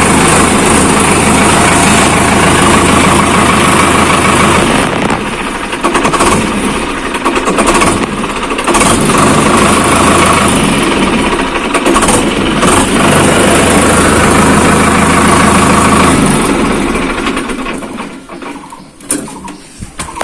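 Sonalika DI-753 tractor's diesel engine running, just brought to life by bridging its faulty starter safety sensor with an aluminium wire. Its sound changes about five seconds in, then dies away from about sixteen seconds in.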